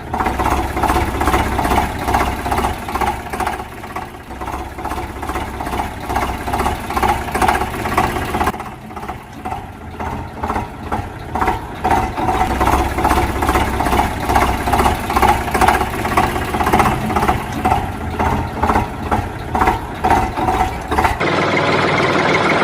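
Engine-like running sound with a fast, even pulse. It changes abruptly about eight seconds in and again near the end.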